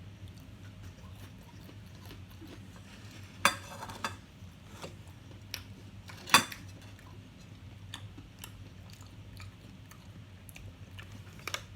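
Eating at a table: cutlery clinking against a plate, with two sharp clacks about three and a half and six seconds in (the second the loudest), and small clicks and chewing sounds in between, over a low steady hum.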